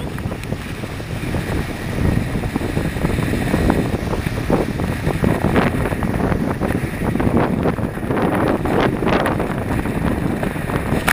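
Strong wind buffeting the microphone over rushing water and splashes, from a Hobie 16 catamaran sailing in high wind. The gusts and splashes come unevenly throughout.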